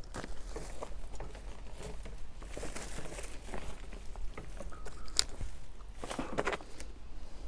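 Hands digging and scraping through loose potting soil in a garden container, with irregular crunching and rustling.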